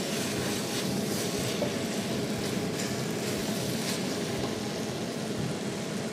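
Braising vegetables and tomato paste sizzling in a stainless steel pot as they are stirred with a wooden spoon, with a steady crackle. The red wine has cooked off completely, so the pot has started frying again.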